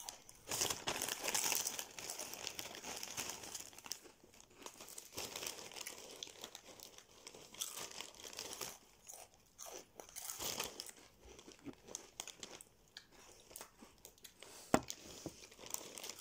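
Plastic crisp packet crinkling as hands reach into it, mixed with the crunching and chewing of crisps. A single sharp snap near the end.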